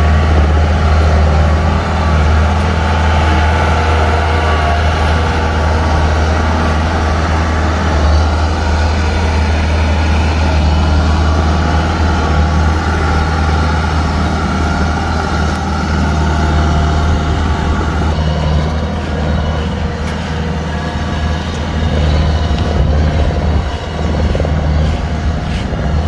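Kubota DC-105X tracked combine harvester's diesel engine running steadily as the machine travels across the field, a constant low drone that thins slightly in its upper range about two thirds of the way through.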